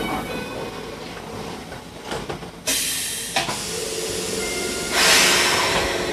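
Enoden 1000 series electric train at a station stop, its air system hissing twice: a short sharp burst about two and a half seconds in, then a louder, longer hiss about five seconds in that fades slowly as the train gets ready to pull away. A steady hum runs underneath from the middle on.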